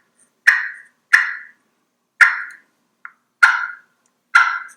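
Slate turkey call played as single clucks, the striker snapped on the outer edge of the slate for a higher-pitched cluck: five sharp clucks at uneven spacing plus one faint, short one, each dying away quickly.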